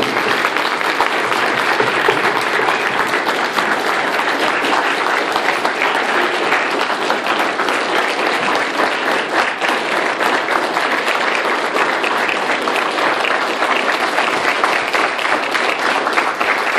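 Applause from a large audience, many people clapping at once without a break.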